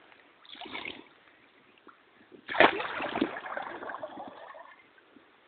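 Splashing in shallow river water: a short splash about half a second in, then a sudden louder splash at about two and a half seconds that fades over the next two seconds.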